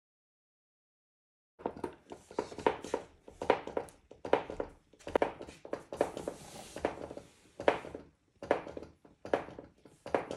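Irregular light knocks and taps, about one or two a second, starting after a second and a half of dead silence, with a brief hiss around the middle.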